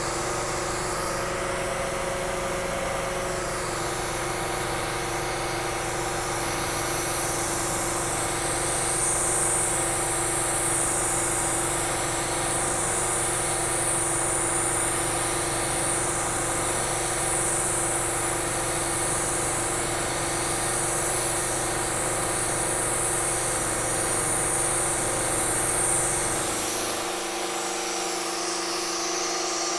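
Milling machine running steadily with its cutter taking a slotting pass through a metal swage block. A high cutting hiss is present from about seven seconds in until about 26 seconds in, and the low motor hum drops away about 27 seconds in.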